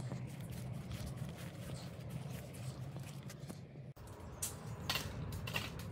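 Footsteps and handling noise from carrying an old stand fan's head, with light clicks, over a steady low hum. The sound cuts out briefly about four seconds in, and a few sharper clicks follow.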